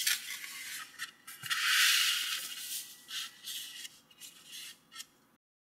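Sheet of origami paper rustling and crackling as hands unfold and handle it, loudest about two seconds in. The sound cuts off suddenly near the end.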